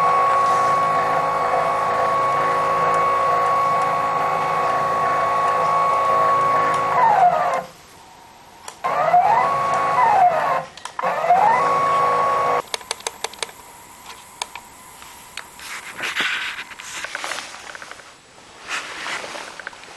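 Stepper-motor drive of a home-built CNC lathe whining at a steady high pitch, then slowing with a falling glide to a stop. It restarts and stops twice more, the pitch rising as it speeds up and falling as it slows. After the last stop, about two thirds of the way through, there are scattered clicks and handling noise.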